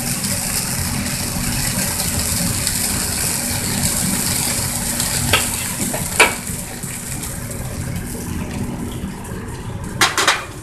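Steady noise of a gas wok range running under a steel wok, with a metal ladle knocking against the wok twice around the middle and a brief clatter of plates near the end.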